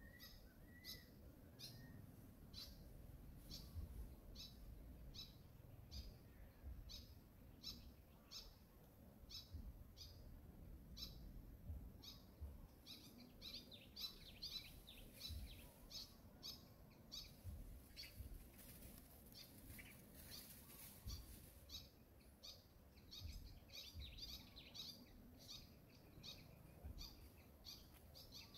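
Faint bird chirping: a short high call repeated about twice a second, over a low rumble.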